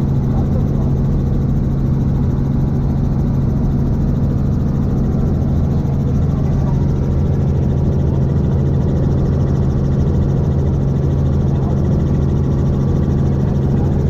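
Helicopter in flight: a steady low drone of the engine and rotor, unchanging throughout.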